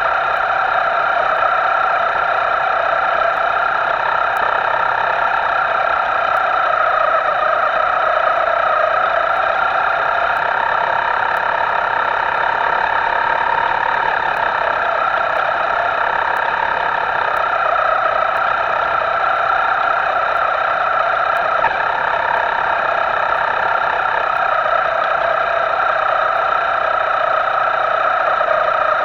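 Electric motor of a radio-controlled boat running at steady throttle: a high, steady whine that holds its pitch, with small wavers.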